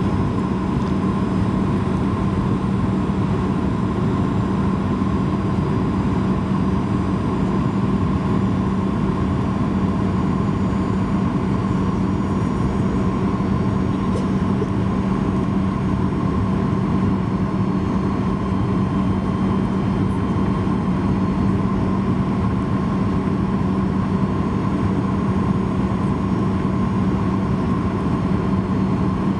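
Cabin noise inside a Boeing 737-800 descending on approach: a steady drone from its CFM56-7B turbofan engines, with a low hum and a higher steady tone.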